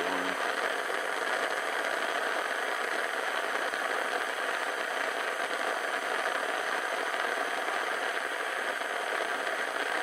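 Gas torch flame burning steadily against an iron crucible, a constant rushing hiss.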